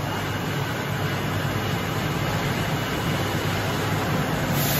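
Electric walk-behind floor scrubber-dryer running steadily, its brush and vacuum motors humming and whirring as it scrubs a wet stone floor.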